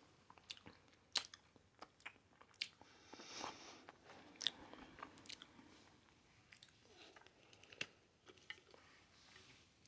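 Crunching and chewing of air-fried pickles coated in crushed Hot Cheetos: a scatter of sharp, irregular crunches with quieter chewing between them.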